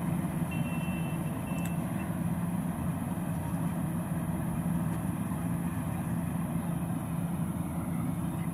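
88 hp combine harvester running steadily while harvesting, a constant low engine drone. Two short high beeps sound in the first two seconds.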